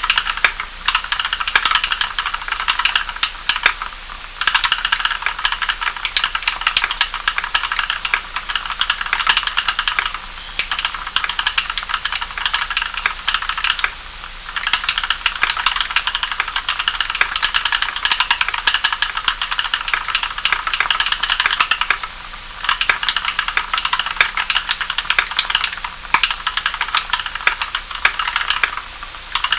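Fast, continuous typing on an EO87 tenkeyless mechanical keyboard fitted with Kailh Cream linear switches (75 g springs, switch films, lubed with Krytox 105 oil) and Equalz stabilizers lubed with Permatex grease: a dense run of keystroke clacks broken by a few short pauses.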